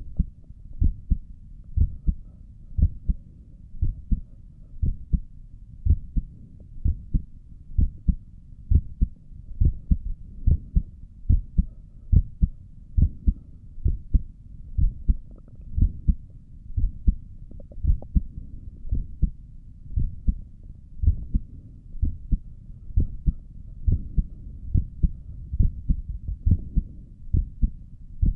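Human heartbeat heard through a stethoscope while seated at rest: a steady, regular lub-dub, each beat a close pair of low thumps, about once a second.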